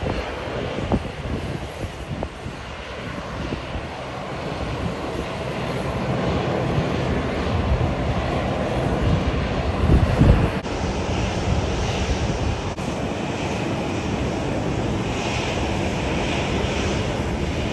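Jet airliner engines on landing. A Boeing 737 is heard rolling out down the runway after touchdown, its noise swelling over the first ten seconds. After an abrupt cut, an Airbus A350 is heard on final approach with a steady engine rush and hiss.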